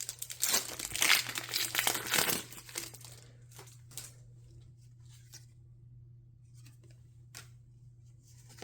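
Foil booster pack wrapper of Pokémon trading cards being torn open and crinkled for the first two and a half seconds, followed by a few faint clicks as the pack is handled.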